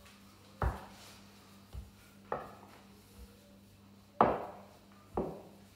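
Rolling pin rolling out bread dough on a floured worktop, giving a series of separate knocks as it meets the work surface, the loudest about four seconds in.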